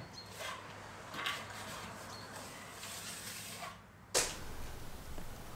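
Faint scraping strokes of a plastering tool drawn over wet plaster on plasterboard joints, a few separate swishes, with one sharp knock about four seconds in.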